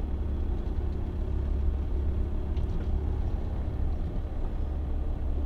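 Steady low rumble of a vehicle's engine and tyres while driving, heard from inside the cabin.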